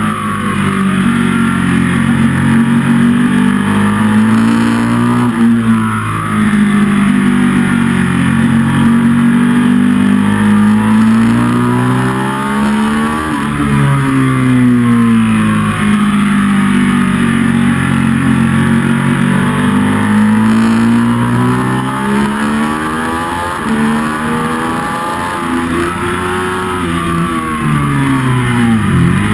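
Ducati 1199 Panigale's Superquadro V-twin at full racing pace, revving up and down through the gears on a track lap. The pitch falls sharply on braking and downshifts about halfway and again near the end. Steady wind rush runs underneath.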